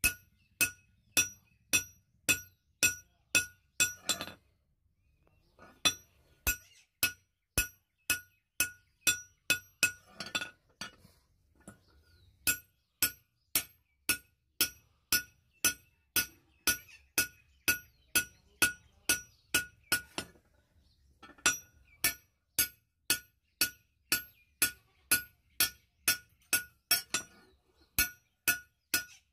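Hand hammer beating a red-hot curved steel blade on an anvil, about two ringing blows a second. There is a pause of a second or two after about four seconds, and a shorter one past the middle.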